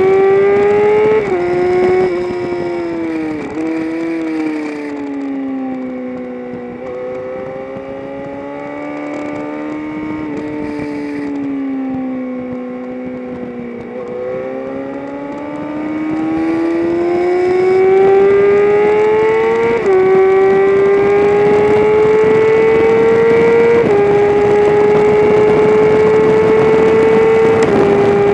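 Onboard engine sound of a vehicle lapping a race track. The engine note falls and rises through corners for about the first fourteen seconds. Then it pulls hard up through the gears, with upshifts about twenty and twenty-four seconds in and another near the end.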